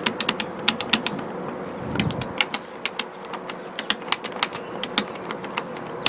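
Plastic rocker switches of a 1992 Toyota Camry power window master switch clicking as they are pressed and rocked by hand. The clicks come several a second in an irregular run, as the freshly reassembled switch is checked for feel.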